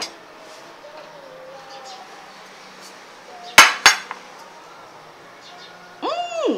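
Two sharp clicks, a third of a second apart, from handling the instant noodle cup, like a hard lid or utensil knocking against it. Near the end comes a short pitched sound that rises and falls.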